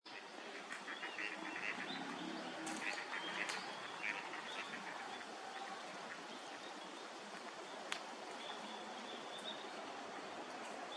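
Gadwalls calling: quick series of short, nasal calls in the first few seconds, then fainter, over a steady outdoor hiss, with a single sharp click near eight seconds.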